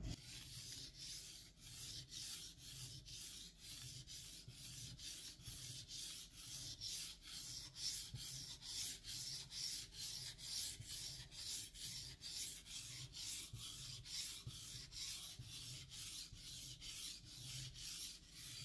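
Santoku knife blade being stroked back and forth on a whetstone to sharpen it: faint, even scraping strokes, about two to three a second.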